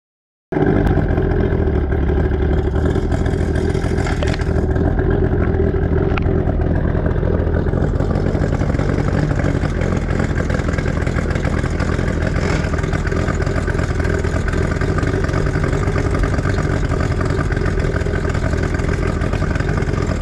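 Tracker 50 outboard motor running steadily out of the water, cooled by a garden hose feeding its lower unit.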